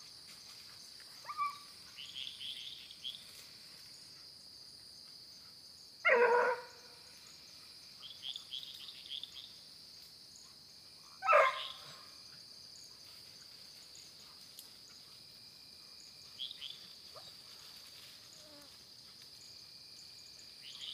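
Hunting dog giving two loud yelping barks, about six and eleven seconds in, the second dropping in pitch, with a few fainter high yelps between, over the steady high chirring of night insects.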